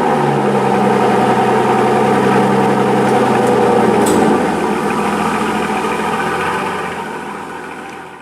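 Audi R8 V10 Plus's 5.2-litre V10 with a Larini exhaust idling steadily after a brief high idle at the start. Its level drops about four seconds in and fades away over the last few seconds.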